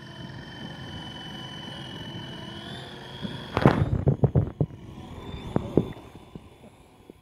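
Feilun FX070C electric RC helicopter flying, with a steady high whine from its motor and rotors that rises a little about three seconds in. About three and a half seconds in, as it comes low and close, a run of loud crackling thumps from air buffeting the microphone takes over for about a second, with two more shortly before six seconds.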